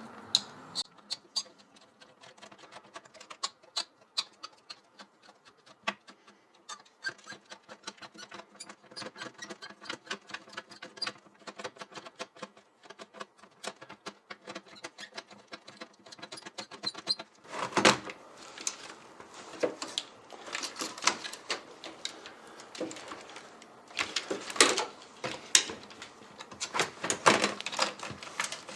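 Small quick clicks and taps of a screwdriver and metal fittings as the CPU water block is unscrewed and lifted off a motherboard, with a louder run of clatter in the second half.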